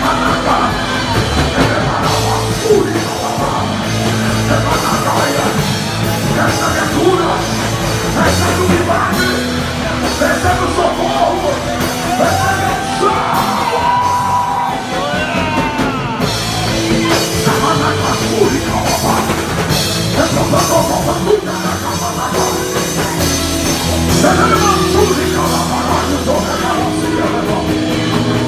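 Loud live worship music with sustained held chords, with voices singing and shouting over it.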